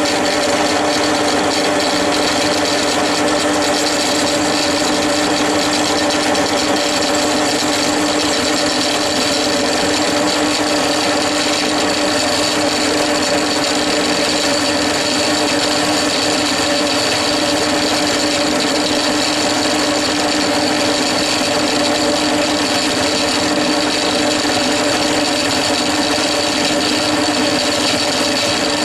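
Drill press running steadily with a homemade one-sided tool-steel boring cutter cutting inside a VW Beetle 1200 crankcase's cylinder bore. It makes an unbroken cutting hiss over a constant motor hum and whine. The cut is enlarging the bore to fit 1600 barrels.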